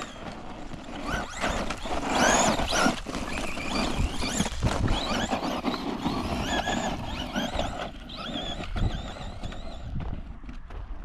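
RC car motor whining as the truck is driven, its pitch rising and falling over and over with the throttle, over a rough rushing noise.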